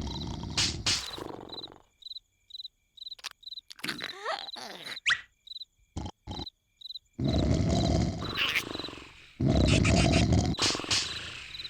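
Cartoon snoring: loud, rasping snores at the start and again in two long snores through the second half. In the quiet stretch between them a cricket chirps about twice a second, with a few short whistle-like glides near the middle.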